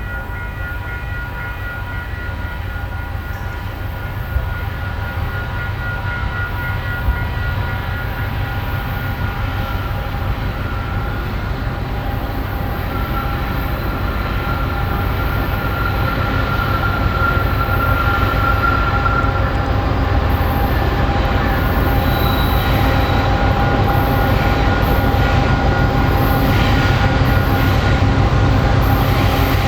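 Canadian National freight train's cars rolling past: a continuous heavy rumble with steady high-pitched ringing tones over it, growing steadily louder.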